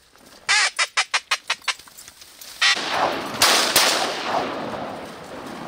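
A quick run of about eight duck quacks, then a volley of shotgun fire: three shots within about a second, the last two the loudest, shot at ducks over the decoys.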